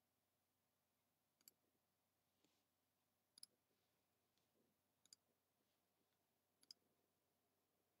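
Near silence with four faint, sharp clicks, each a quick double click, spaced about a second and a half to two seconds apart.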